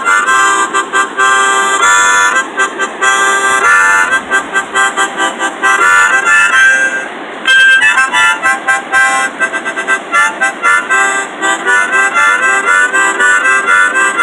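Harmonica playing a run of quick, short notes, with a brief breath-pause about seven seconds in. A steady rush of river rapids runs underneath.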